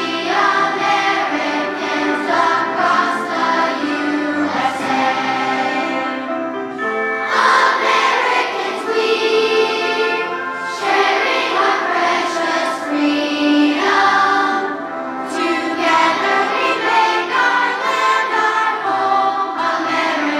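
A group of young children singing a song together in chorus, over instrumental accompaniment.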